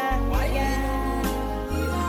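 Background music: a recorded song with sustained melody tones over a steady bass line.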